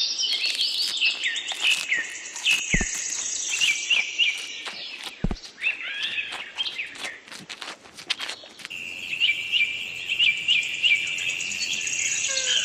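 Birds chirping and singing: many short, high calls, several of them quick falling notes, repeating throughout, with a few soft knocks in between.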